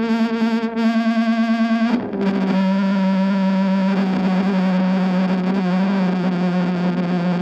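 Fender Jazzmaster with Fat Jazzmaster pickups, played through an ESI Transponder effects pedal into an Orange Micro Dark amp with the gain at 7 and a 1x8 cab. It holds a distorted note that wobbles quickly in pitch and pulses in level. About two seconds in it moves to a slightly lower sustained note.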